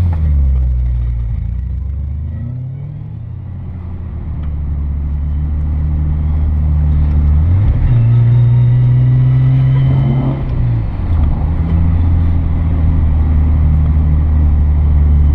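A high-performance car's engine heard from inside the cabin while driving: its drone eases off over the first few seconds, then builds again, with a step up in pitch about eight seconds in and a drop about three seconds later.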